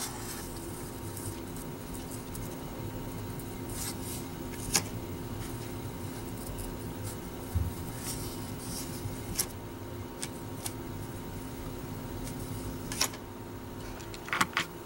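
Faint handling of 1990 Fleer cardboard baseball cards: cards sliding over one another as they are flipped by hand, with several short light ticks and scrapes scattered through, over a steady low hum.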